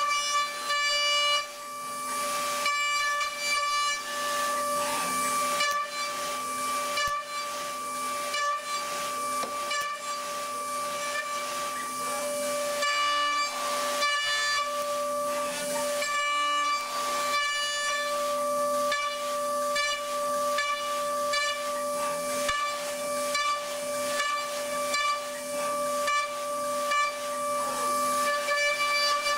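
Datron high-speed CNC mill cutting an aluminium block with a small end mill: a steady high whine with a hiss of cutting noise over it, broken by frequent short rasps as the tool bites in and changes direction.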